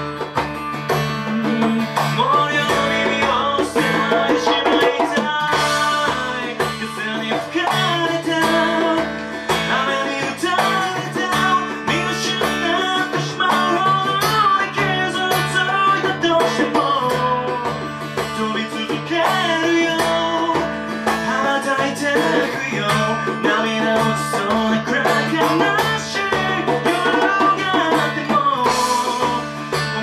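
Live acoustic song: a steel-string acoustic guitar strummed steadily, with a hand drum keeping a regular beat and a gliding melody line over the top.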